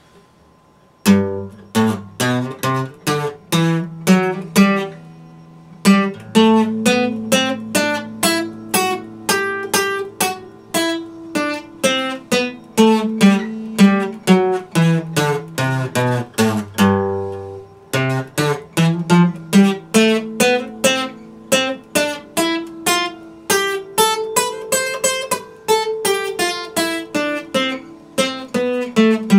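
Epiphone dreadnought acoustic guitar played solo, notes and chords plucked in a steady rhythm. The playing begins about a second in and breaks off briefly a little past halfway before carrying on.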